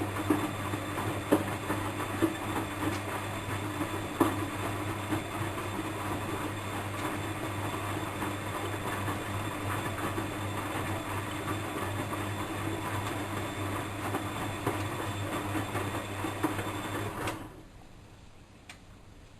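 Bosch WFM3010 washing machine running: a steady low hum with irregular knocks and rattles, which cuts off suddenly about 17 seconds in, leaving a few faint ticks.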